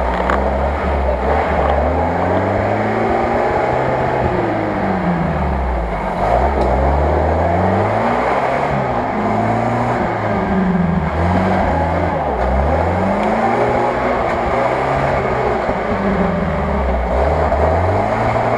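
UAZ off-roader's engine revving up and dropping back over and over, about every two seconds, as the vehicle works through deep mud.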